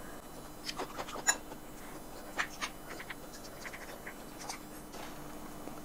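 Close-miked eating sounds: scattered soft clicks and smacks of chewing and of handling shellfish and a spoon, a small cluster about a second in and more through the middle, over a faint steady hum.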